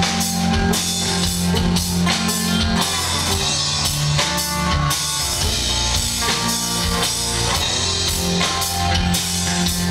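Live rock band playing an instrumental intro: acoustic guitar, bowed cello, electric bass and drum kit, with a steady beat and sustained low bass notes.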